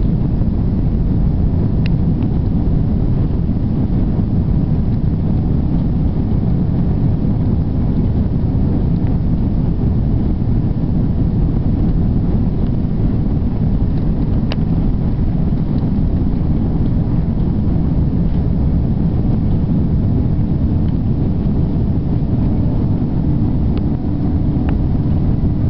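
Loud, steady rumble and rush inside the cabin of an Airbus A340-600, its four Rolls-Royce Trent 500 engines and the airflow heard from the rearmost row. A steady hum joins about twenty seconds in.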